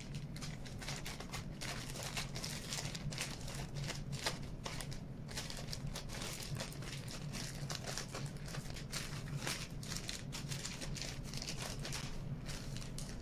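Plastic bag crinkling continuously as hands squeeze and rub a crumbly rice-flour and white-glue cold porcelain mix off it.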